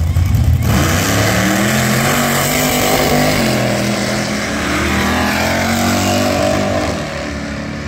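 Drag car engines at a drag strip: a deep, loud rumble at first, then a car at full throttle accelerating down the track, its engine pitch climbing and dropping back several times as it shifts gears, fading a little near the end.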